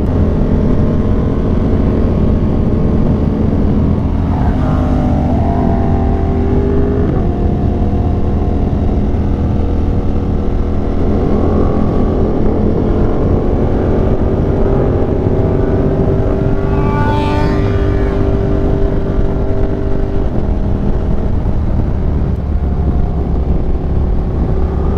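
Yamaha R1M sport motorcycle's engine running under way, its pitch climbing and dropping several times with throttle and gear changes as the bike accelerates past traffic, over a steady wind rush.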